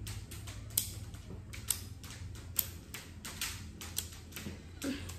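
Irregular sharp plastic clicks, a few a second, from handling a Glock 19X airsoft pistol magazine as its 0.36 g plastic BBs are pushed out and drop.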